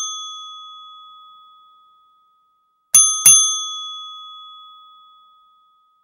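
Bell chime sound effect: a ding already fading as it begins, then two quick dings about three seconds in, each ringing out over about two seconds.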